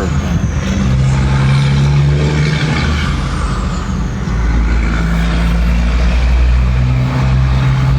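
Road traffic: a heavy vehicle's engine drone, steady but shifting in pitch a few times, with a deeper rumble swelling in the middle.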